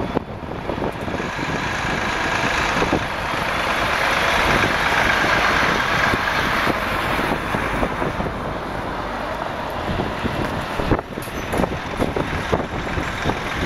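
New Volvo FH trucks pulling trailers drive slowly past one after another, with engine and tyre noise throughout. The sound swells to its loudest about four to six seconds in as a truck passes close by.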